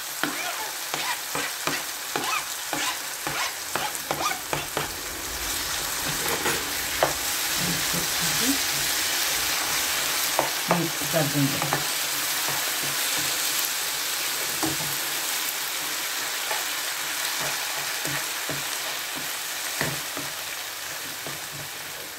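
Mashed roasted eggplant frying in onion-tomato masala in a nonstick pan, sizzling while a spatula scrapes and taps against the pan. The taps come thick and fast for the first few seconds, then the sizzle swells louder and holds, with a few scattered knocks of the spatula.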